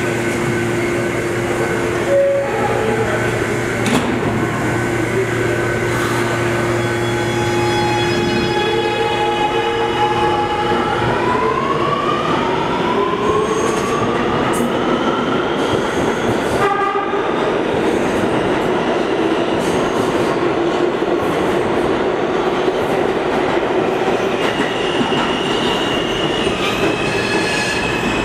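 R211A New York City subway train pulling out. A steady electrical hum while it stands gives way, about nine seconds in, to the propulsion motors' whine climbing in pitch as it accelerates, over the rumble of steel wheels on rail. Near the end a high steady squeal sets in as the next train approaches.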